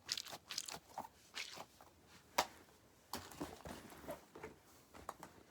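Small fidget toys being handled: soft, irregular rustling and crinkling with scattered small clicks, and one sharper click about two and a half seconds in.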